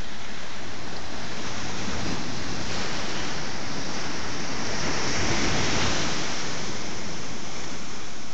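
Sea waves washing against shoreline rocks: a steady rushing wash of surf that swells up a little past the middle and eases off again.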